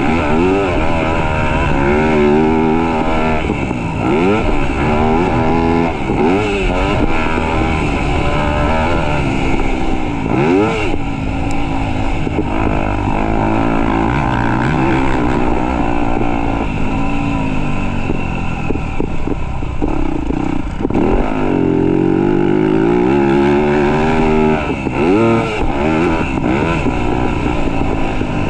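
Motocross bike engine revving hard, its pitch climbing and dropping again and again. It is loud throughout.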